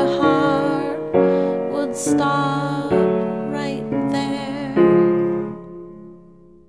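Closing bars of an indie rock song on keyboard: chords struck about five times, each left ringing, the last one fading out near the end.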